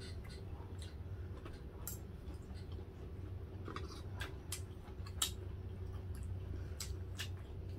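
Forks and spoons clicking and scraping lightly on plates during a meal, a scattering of small taps with a sharper click about five seconds in, over a steady low hum.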